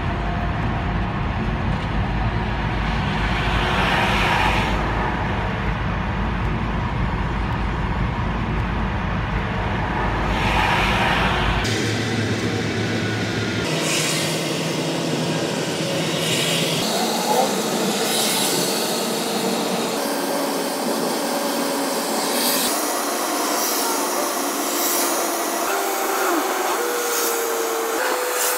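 Car on the move: steady road and engine noise, with a heavy low rumble that drops away about halfway through.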